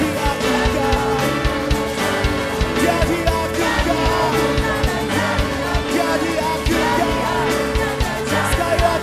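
Upbeat band music with a singing voice over a steady drum beat, part of a song medley.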